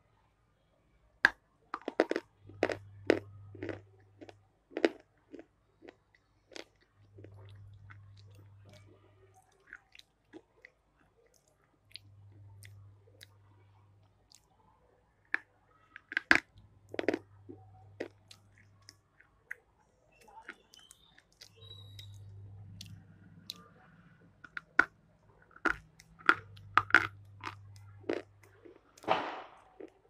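A person biting and crunching a hard food close to the microphone, with sharp crunches coming in irregular clusters between quieter chewing.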